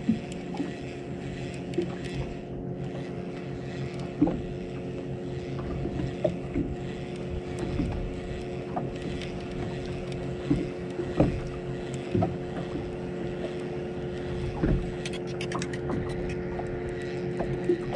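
Boat motor humming steadily, with scattered sharp knocks and clicks from handling gear on the boat and a cluster of light ticks near the end.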